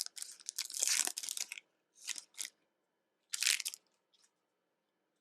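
Foil trading-card pack wrapper crinkling and tearing as the pack is opened: a dense rustle for about a second and a half, then a few short crinkles.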